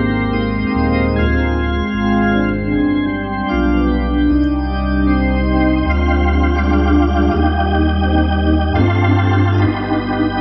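Hammond B3 organ playing sustained chords over a bass line that moves to a new note every second or two. About six seconds in, the upper chords take on a wavering vibrato.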